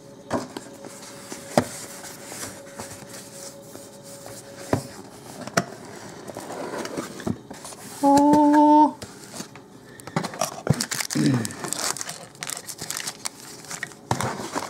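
Plastic wrapping crinkling and tearing, with small clicks and scrapes of a cardboard card-game box being opened and handled. A short hummed note about eight seconds in is the loudest sound.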